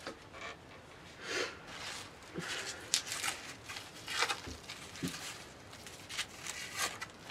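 Soft, papery rustles from a string of dry-skinned onions being handled and hung up, coming as a few short rustles spread a second or so apart.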